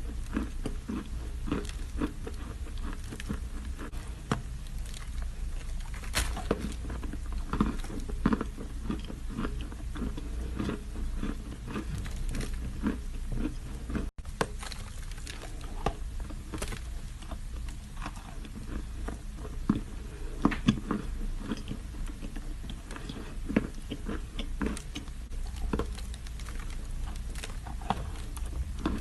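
A person biting and chewing a piece of edible chalk, close to the microphone: irregular dry crunches and chewing sounds, with a split-second gap near the middle.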